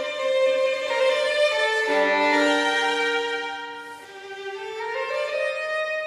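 Background music: a slow violin melody of long held notes, which grows softer about four seconds in and then swells again.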